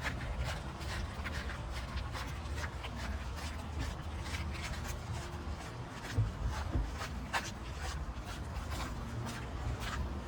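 Footsteps on a park path, short scuffing steps about two or three a second, over a steady low rumble.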